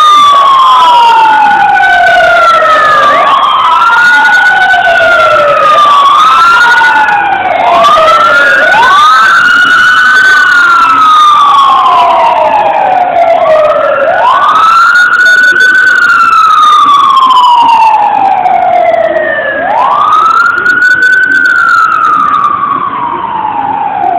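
Fire truck and ambulance sirens wailing loudly, each sweep climbing quickly and then falling slowly over two to four seconds. For the first ten seconds or so two sirens overlap out of step; after that a single siren carries on with longer sweeps, a little quieter near the end.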